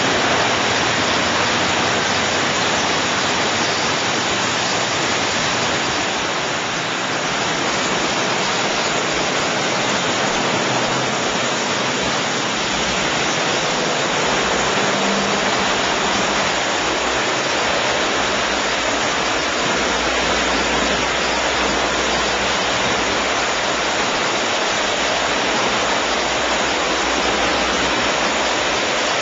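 Hydro-Chem Systems automatic touchless truck wash spraying high-pressure water from its nozzles: a steady, rushing hiss of spray with no let-up.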